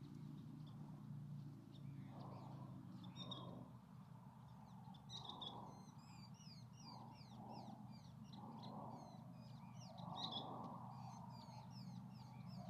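Faint birds calling outdoors: harsh calls repeat roughly once a second, with quick high, falling chirps over them from a few seconds in, and a steady low hum beneath.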